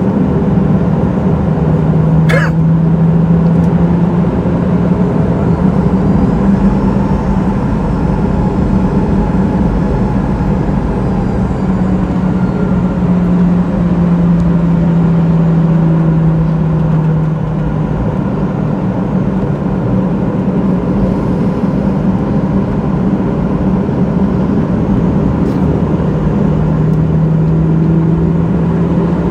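Steady cabin noise inside a Boeing 737-800, its CFM56 turbofan engines running with a constant low drone and a faint high whine. There is a short click about two seconds in.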